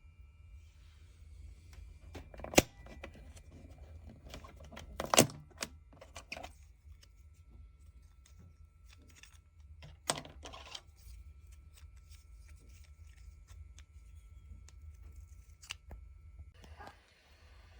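Sharp plastic clicks and small rattles at irregular intervals, with about six loud snaps among them, from a 3D-printed PLA toy disc shooter being handled and worked.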